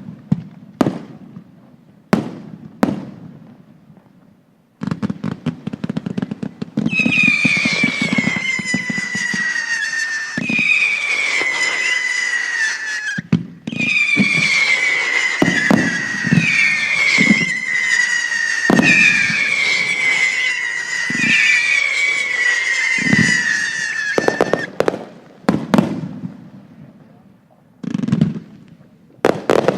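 Fireworks display: sharp shell bursts, then from about five seconds in a dense crackling joined by repeated whistles, each falling slightly in pitch, that go on for more than fifteen seconds. The whistles and crackle stop near the end and separate bursts follow.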